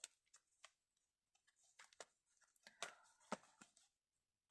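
Faint rustling and light clicks of paper and card being handled by hand: folded paper pockets being shifted and pressed, in short scattered touches with a few longer rustles about halfway through.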